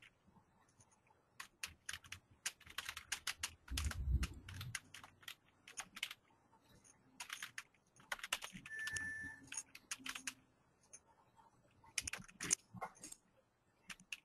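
Typing on a computer keyboard: irregular runs of key clicks, with a low thump about four seconds in and a brief high tone near nine seconds.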